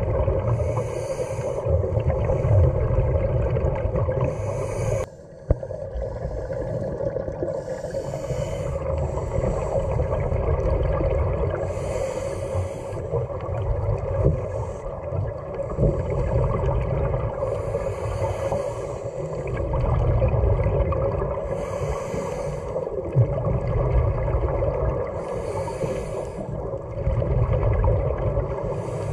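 Scuba regulator breathing underwater: gushing bubbly exhalations every few seconds over a steady low hum and rumble. The sound drops out briefly about five seconds in.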